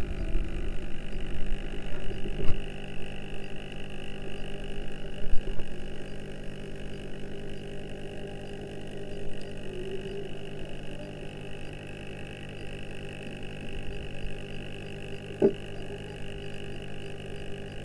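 Steady electric hum of submerged pond pumps, heard underwater, with a few soft knocks.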